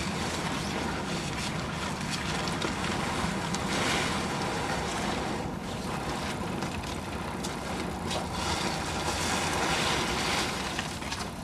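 Sailcloth rustling and crinkling as a sail is pulled out and stretched flat, over wind buffeting the microphone.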